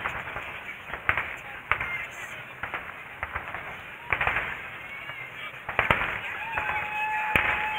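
Fireworks salute going off: sharp bangs and cracks at uneven intervals, roughly one a second, over the voices of a crowd.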